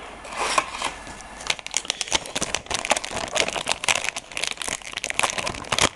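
Foil booster pack crinkling and crackling in the hands as it is handled, in a dense, irregular run of small crackles.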